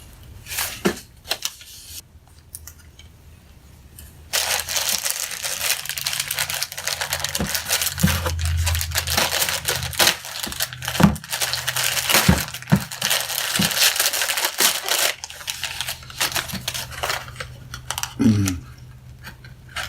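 Packaging being handled, torn and crinkled open by hand: a few clicks and rustles at first, then a long stretch of dense crinkling and tearing from about four seconds in, with scattered knocks and crackles near the end.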